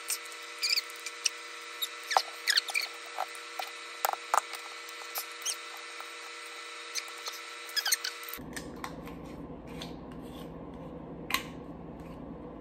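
Picking and scratching at the seal under the cap of a mustard squeeze bottle: irregular sharp scratches, crinkles and clicks, thick for the first eight seconds and sparse after, over a steady hum.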